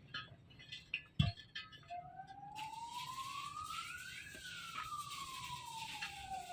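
A siren wailing, its single tone rising slowly for about two seconds and then falling for about two more, starting about two seconds in. Before it there are a few light metallic clicks and a short knock about a second in.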